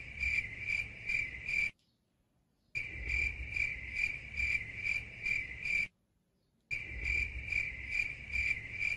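Cricket-chirping sound effect: a steady rhythm of high chirps, about three a second, cut off twice by a second of dead silence. This is the stock awkward-silence gag laid over a reaction shot.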